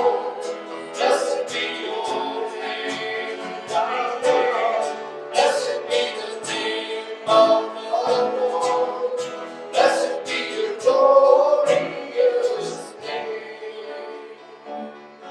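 Worship music: voices singing a song with instrumental accompaniment, getting quieter near the end.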